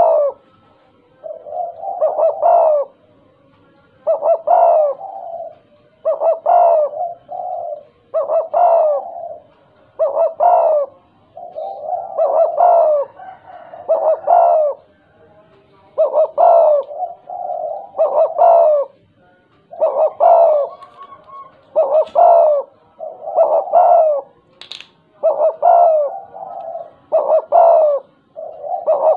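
Spotted dove cooing over and over, one stuttering (gagap) phrase about every two seconds, each broken into several short notes.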